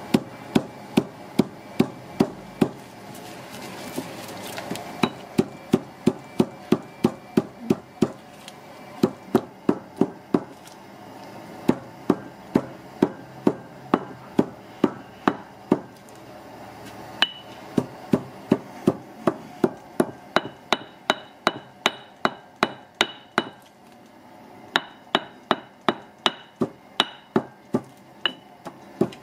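Stone pestle pounding dry spice flakes in a granite mortar: a steady run of sharp thuds at about two to three strokes a second, broken by a few short pauses. Many strikes have a short stony clink.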